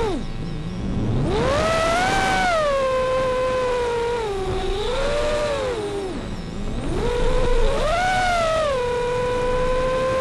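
Brushless motors of a Martian 220 FPV quadcopter whining in flight, the pitch rising and falling smoothly with the throttle. The whine sinks to a low hum about six seconds in, climbs back, and holds steady near the end.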